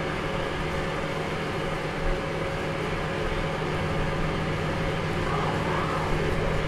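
Improvised performance soundscape: a steady droning hum under a dense noisy wash, with a wavering tone that rises and falls about five seconds in.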